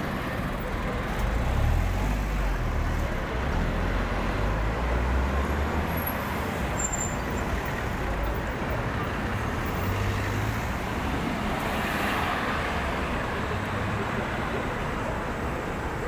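Street traffic: cars, among them a Hyundai taxi, driving slowly past close by. Their engine rumble and tyre noise rise and fall over a steady city background, strongest in the first few seconds and again about two-thirds of the way through.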